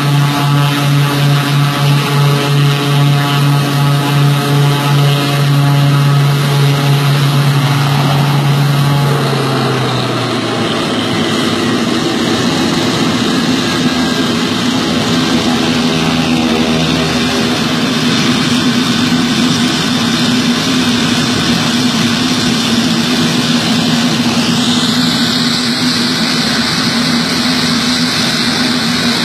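Engines of a twin-engine DC-3-type transport plane running on the ground, with a pulsing beat at first. About nine seconds in the engine note shifts and then runs steadily. Near the end a higher hiss joins in.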